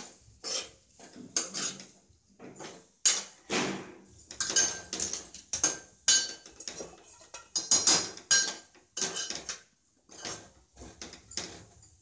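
Metal spatula scraping and knocking against a metal pan as diced potatoes and fenugreek leaves are stirred with spices. Repeated irregular scrapes and clinks, about one to two a second, with a slight metallic ring.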